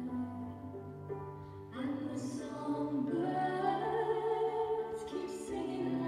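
Slow, gentle song with a singing voice over sustained accompaniment, swelling louder about two seconds in.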